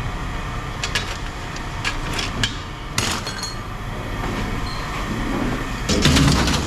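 Scrap metal being handled, with a series of sharp metallic clanks and knocks about a second in and again around two and three seconds, over a steady low rumble. Near the end comes a louder, longer clattering burst.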